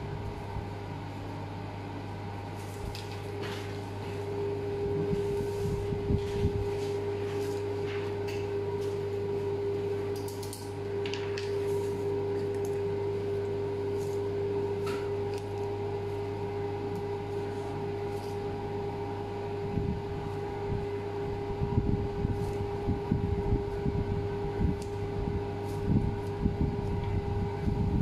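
Steady machine hum with several held tones, with occasional light clicks and knocks that come more often in the last third.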